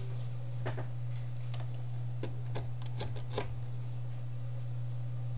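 Steady low hum of a 200-watt permanent-magnet motor spinning a flywheel. A few light clicks and knocks are scattered through the middle as someone handles things close by.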